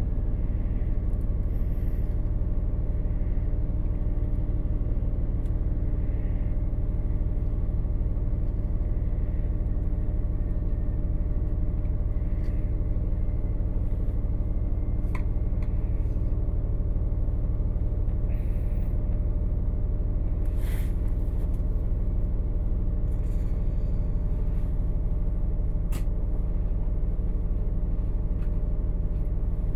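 Steady low rumble and hum of a passenger train heard from inside the carriage, with a few faint clicks and knocks.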